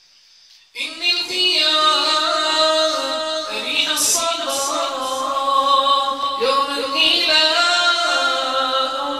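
A man singing an Islamic nasheed, with long held notes that bend and waver. The voice comes in sharply about a second in, after a near-silent pause.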